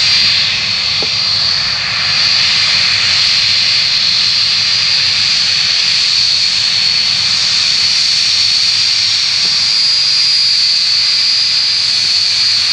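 Boeing 757-200's twin turbofan engines running at taxi power as the airliner rolls past close by: a loud, steady high-pitched whine over a rushing roar.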